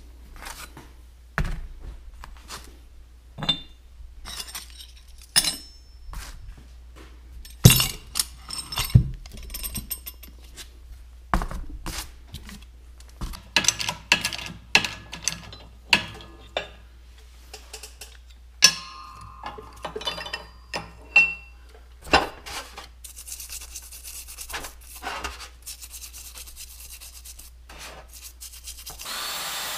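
Steel clutch parts being handled, pressed apart and scraped clean: scattered clinks, knocks and scraping of metal on metal at irregular intervals, over a steady low hum. Just before the end a steady running noise begins.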